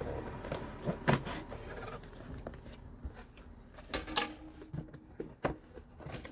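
A cardboard parcel being handled and opened: scattered knocks, scrapes and clicks, with a short, louder rasping noise about four seconds in and a sharp knock a little after five seconds.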